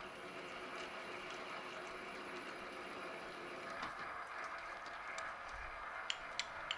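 Import metal lathe running steadily during a threading pass, its motor and gears giving a constant hum with a few steady tones. A few light clicks near the end.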